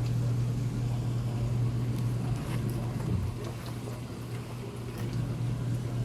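Chicken liver and tofu in oyster sauce simmering in the pan, a faint sizzle with a few light clicks, over a steady low hum.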